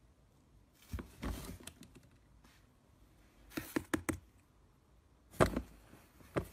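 Plastic swing lid of a kitchen bin knocking and clattering in four short bursts as a cat moves on and inside the bin, pushing the lid.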